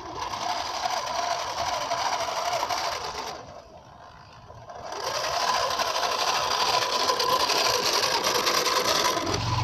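Small electric gear motor of a homemade 1/10-scale RC dump truck running with a steady whine. It drops away briefly about three seconds in, then runs again.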